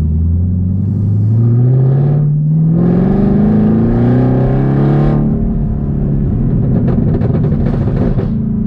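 Chevrolet Camaro ZL1's supercharged 6.2-litre V8, through an H-pipe cat-back exhaust, heard from inside the cabin under hard acceleration. The revs climb, dip briefly at a gear change about two seconds in, then climb again. About five seconds in the throttle closes and the engine settles to a lower rumble, with a run of crackling pops near the end.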